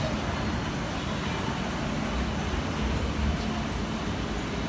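Steady low rumble and hiss of background traffic and busy station ambience, with no single event standing out.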